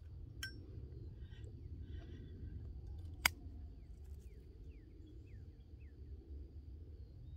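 Quiet outdoor ambience with a steady low rumble and soft puffing on a tobacco pipe. One sharp click comes about three seconds in, and a few faint, short, high falling chirps follow in the second half.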